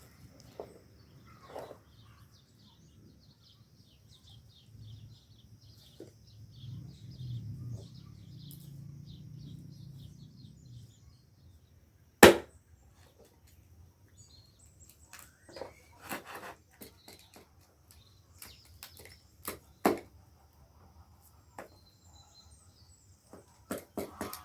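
Scattered knocks and clatters of cooking work, with one sharp, loud knock about halfway through. Rapid high-pitched chirping runs through the first half, and a low rumble swells in the middle.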